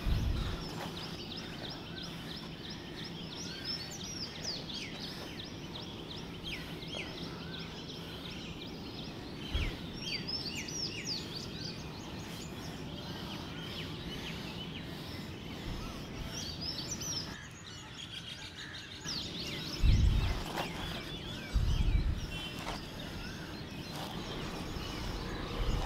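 Many small birds chirping and calling over a steady background hiss, with a few short low thumps, the loudest about twenty and twenty-two seconds in.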